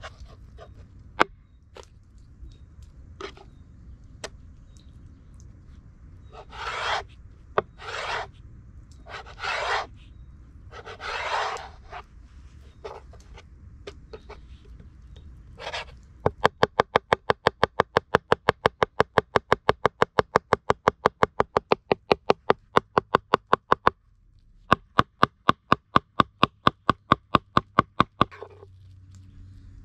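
Kitchen knife chopping raw meat into mince on a wooden cutting board. First come scattered taps and four short scraping strokes. About halfway, a fast, even run of blade chops on the board begins, several a second, breaks off for a moment, then starts again.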